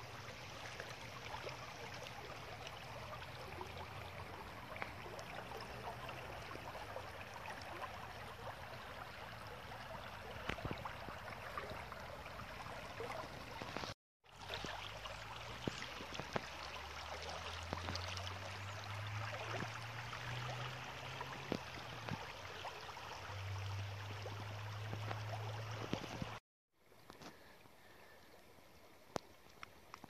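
Shallow river water flowing and rippling over stones, a steady rush of water. It cuts off abruptly twice, about halfway through and again near the end, where it is quieter. The middle stretch has a low hum under the water.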